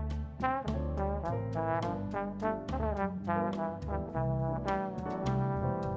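Live jazz: a trombone plays a flowing line of many quick notes over bass and drums, with steady cymbal strokes keeping time.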